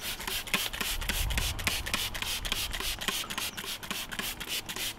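Hand trigger spray bottle squirted again and again, a quick run of short hisses, with jacket fabric rustling close by.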